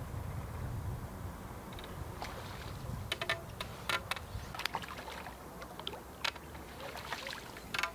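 A series of irregular sharp clicks and light taps, starting about two seconds in, over a low steady rumble.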